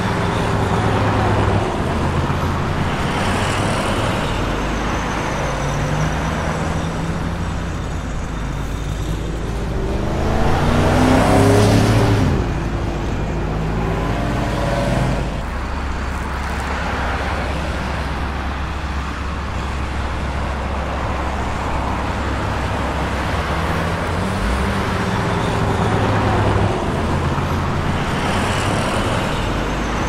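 City street traffic: car and heavier vehicle engines running and idling in a steady low rumble. About ten to twelve seconds in, one vehicle passes close by, louder, its engine pitch falling as it goes.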